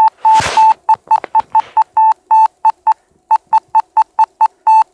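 Morse code beeps from a phone app: a single mid-pitched beep tone keyed on and off in a fast, even run of short dots and longer dashes, sounding out queued messages. A brief rush of noise breaks in about half a second in.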